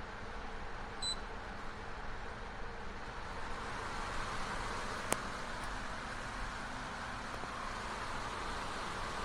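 GE Profile ClearView window air conditioner running with a steady rush of fan air. A short electronic beep comes about a second in, and a single sharp click comes about five seconds in.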